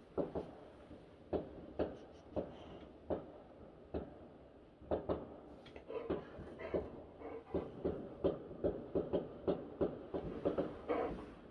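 Fireworks going off outside, heard muffled from indoors as a string of irregular bangs and crackles: a few scattered pops at first, then a dense run of several pops a second from about six seconds in.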